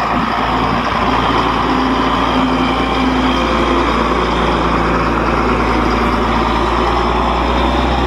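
Mack dump truck's diesel engine idling steadily.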